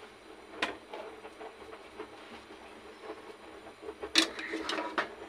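A metal spoon clinking and scraping against an aluminium saucepan as brown sugar and water are stirred for caramel. There are a few sharp clinks, the loudest about four seconds in, over a faint steady hum.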